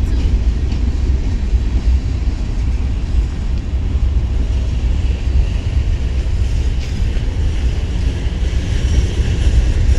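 Indiana & Ohio freight train, a diesel locomotive with covered hopper cars, on the move beside the track: a steady, heavy low rumble.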